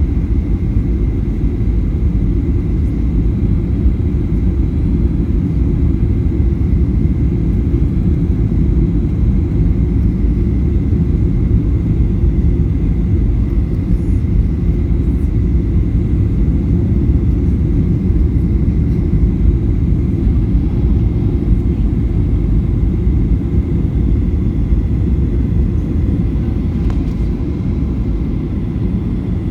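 Airliner cabin noise: a steady, loud low rumble of engines and airflow.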